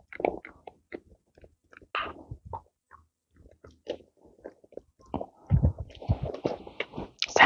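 An Australian Shepherd sniffs and noses at upturned plastic flower pots, making scattered small clicks and knocks. About five and a half seconds in, a pot is moved with heavier knocks and a rustle, and the dog goes after the treat beneath with mouthing and chewing sounds.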